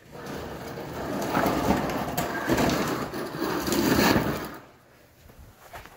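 Gritty crackling and scraping as a hand works through debris on a partly stripped engine block. The rough rustling noise swells for about four and a half seconds, then stops suddenly.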